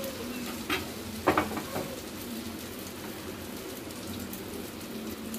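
Beaten egg frying in hot oil in a pan as an omelette sets, a steady sizzle, with a few sharp clicks between about one and two seconds in.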